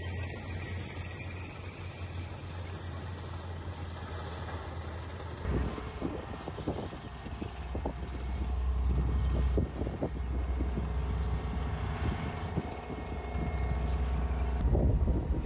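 Tanks moving: engines running with a heavy low rumble and scattered knocks from the tracks. The sound changes abruptly about five seconds in, where the low rumble grows much stronger.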